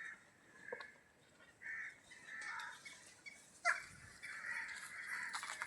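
Crows cawing faintly, several separate calls a second or so apart, with other birds calling.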